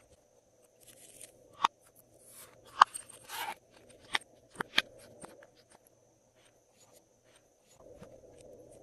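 Glossy slime being squished and mixed by hand. It gives a string of sharp pops and clicks with short crackly bursts over the first five seconds, then settles into quieter handling.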